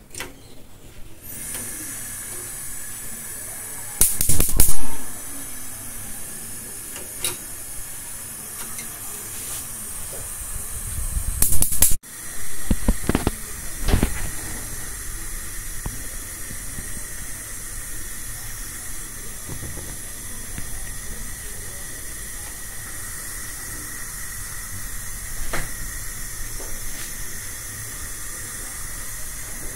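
Gas cooktop's brass burner hissing steadily as the gas burns with a blue flame. Over the hiss there is a loud short noise about four seconds in, another around twelve seconds, and a few fainter sharp knocks after.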